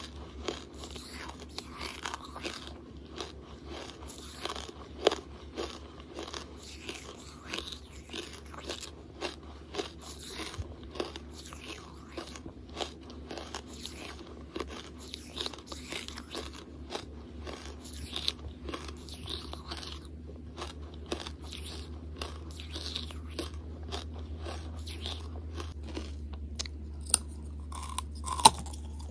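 Hard lumps of charcoal being chewed, crunching and crackling densely throughout. A couple of louder, sharper bites come near the end as a fresh chunk is bitten off. A steady low hum runs underneath.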